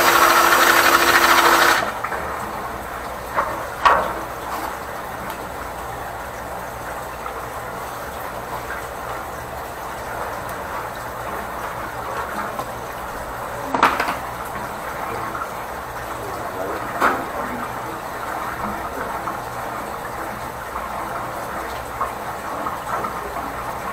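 Drain-cleaning work at a floor drain clogged with hardened grease: a loud burst of noise with a steady tone for about two seconds at the start, then a steady low hum with three sharp knocks.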